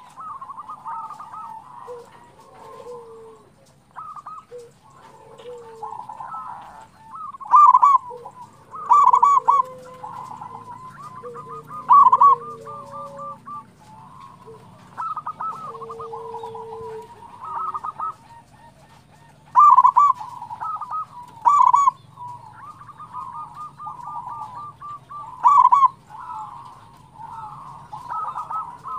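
Zebra dove (perkutut) cooing in its rapid, trilled song. Louder phrases come every few seconds, about seven in all, with softer rolling coos between them.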